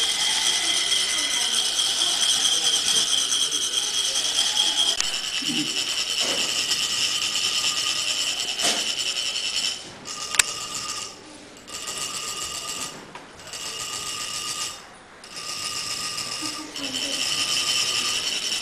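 Metal chak-pur funnels being rasped with a rod to trickle coloured sand onto a Kalachakra sand mandala: a ringing metallic rasp, continuous at first, then from about halfway in short strokes of about a second with brief pauses. A single sharp click comes just after the halfway point.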